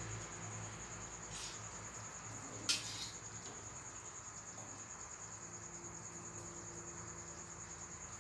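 Steady high-pitched trill of crickets over a faint low hum. About two and a half seconds in, a metal ladle clinks once against the wok as curry is scooped out.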